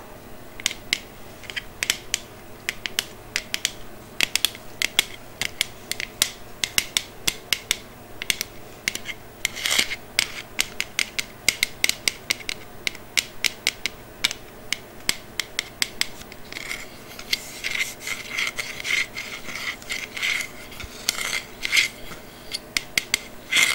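Quick, irregular tapping and scratching on an object, made for ASMR: many sharp clicks, several a second, with brief rubbing scrapes between them.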